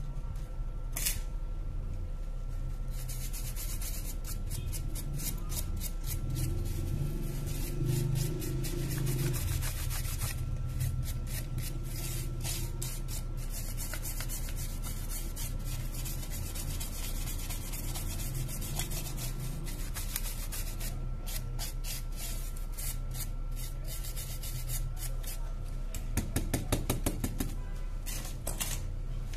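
Rapid rubbing and scraping strokes of a small hand tool on a Realme C3 phone's bare mid-frame, cleaning old screen residue off it. The strokes pause briefly a few times and come fastest and loudest near the end.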